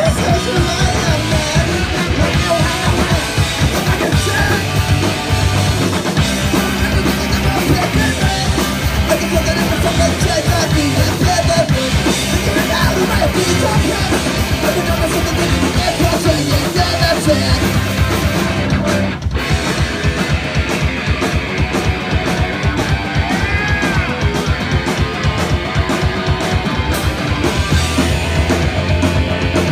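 Punk rock band playing live and loud: drum kit, electric guitar and sung vocals, with a split-second break about nineteen seconds in before the drums pick up a fast beat.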